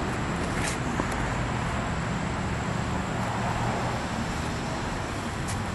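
Steady outdoor rumble of road traffic and vehicles, with a few faint clicks.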